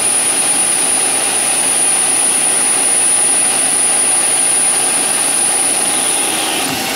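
Metal lathe taking a turning cut on a steel arbor: a steady cutting and machine noise with a high, steady whine that stops shortly before the end. The cut is 30 thou deep at 5 thou per revolution, and the chip is not breaking.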